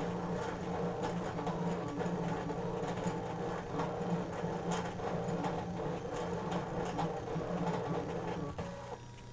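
Brother ScannCut cutting machine drawing with its pen: the stepper motors whir steadily as the carriage moves the pen across the paper and the mat shifts, with faint ticks. The motors pause briefly near the end.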